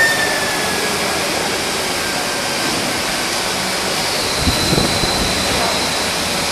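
Induction melting furnace running while brass melts: a steady, even rushing noise with a faint high whine coming in partway through.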